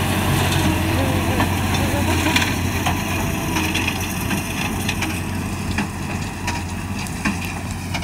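Fendt 936 tractor's six-cylinder diesel running under load while pulling a working Claas Quadrant 3400 large square baler, with irregular knocking and cracking from the baler as it packs straw. The sound grows slightly fainter as the outfit moves away.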